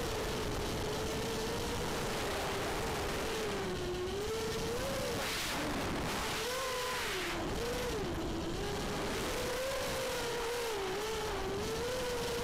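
ImmersionRC Vortex 250 Pro racing quadcopter's brushless motors and propellers, heard from the camera on board: a buzzing whine that wavers up and down in pitch as the throttle changes, over a constant rush of air.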